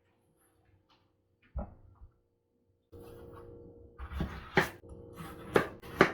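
A single thump, then a steady hum starts about three seconds in, with three sharp knocks over it in the last two seconds.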